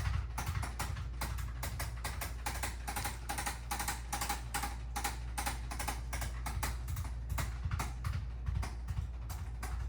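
A fast, slightly irregular run of short tapping clicks, about four to five a second, over a steady low hum.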